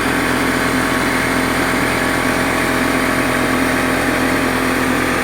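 Steady mechanical running noise with a constant low hum, even and unbroken, with no separate press strokes.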